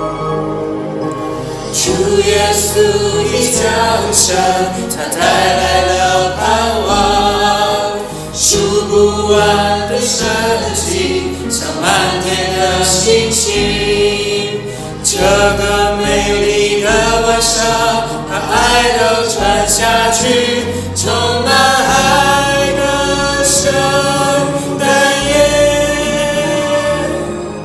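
A small mixed vocal group of two women and two men singing a Mandarin Christmas worship song chorus together in harmony over an accompaniment with a bass line, louder from about two seconds in.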